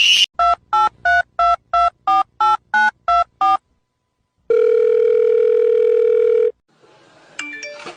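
Telephone keypad dialing: about ten short two-tone beeps in quick succession, one for each number pressed. After a pause, one steady two-second tone of a call ringing through.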